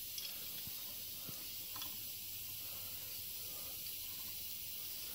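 Faint steady hiss, room noise without any clear mechanical sound, with one faint tick a little under two seconds in.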